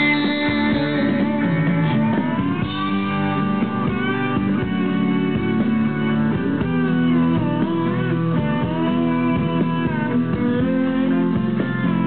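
Rock backing track in an instrumental break with no singing: an electric lead guitar plays a melody of gliding, bending notes over sustained band chords.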